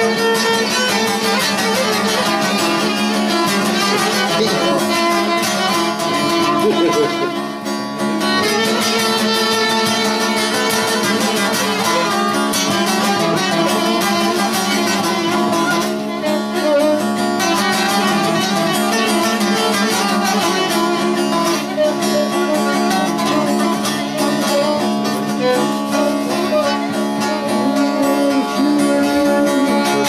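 Bağlama (long-necked Turkish saz) playing an instrumental passage: a plucked melody over a steady low drone.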